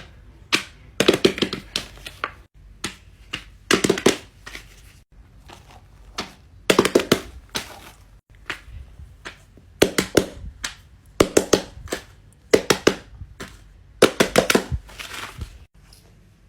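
Silicone pop-it fidget toy being pressed: quick runs of soft pops, a few bubbles at a time, with short pauses between runs.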